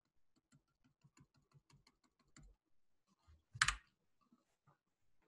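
Faint clicking at a computer: a quick run of light key-like clicks for about two and a half seconds, then one louder knock about three and a half seconds in.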